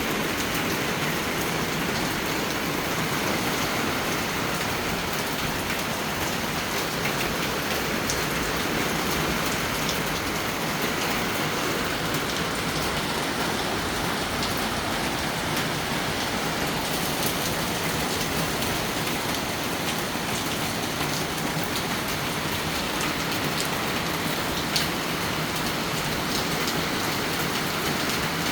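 Steady rain falling on a small garden, a dense even hiss with scattered individual drops ticking on surfaces.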